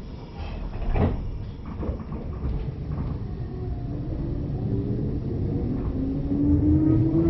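Electric local train pulling away: the traction motors whine with a steadily rising pitch over the rumble of the wheels as it gathers speed, with a single clunk about a second in.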